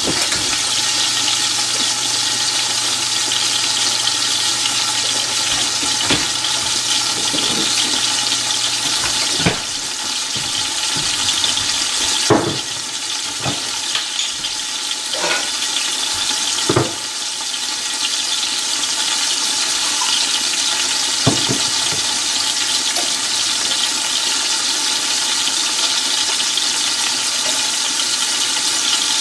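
Seasoned fish frying in hot oil in a skillet under a glass lid: a steady sizzle with several scattered pops of spattering oil.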